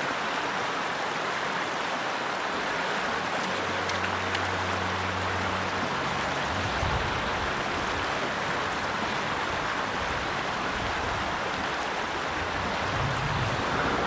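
Shallow river rushing steadily over rocks and stones.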